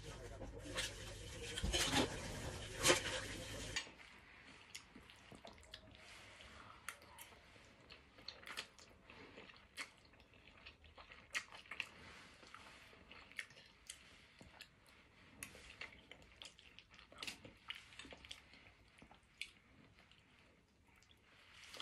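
For about four seconds, dishes being washed, with clattering and water noise. After a sudden drop, quiet eating of stir-fried instant noodles: soft scattered clicks of a metal fork against a plate, and chewing.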